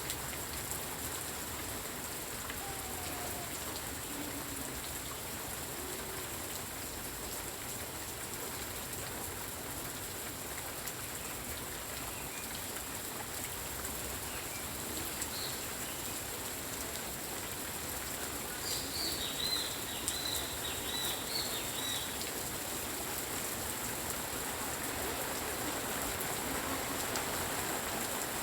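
Steady rain falling and pattering on surfaces. About two-thirds of the way through there is a brief run of high chirps.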